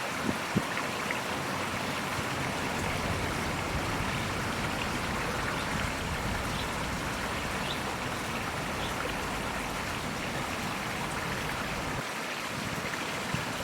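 Steady rush of flowing stream water, with a couple of faint clicks in the first second.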